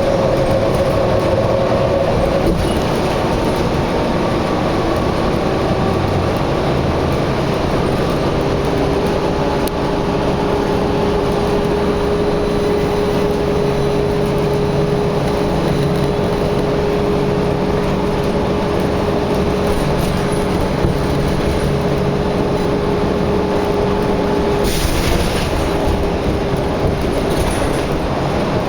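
Steady loud rumble of a moving vehicle, with a humming tone that holds from about eight seconds in until about twenty-five seconds in.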